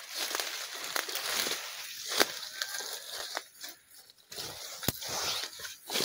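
Footsteps crunching through dry leaf litter and brushing against forest undergrowth, with a few sharp cracks, the loudest a little after two seconds and near five seconds.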